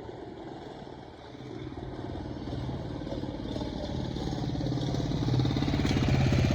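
Motorcycle engine running at a steady low pitch, growing steadily louder as it comes closer.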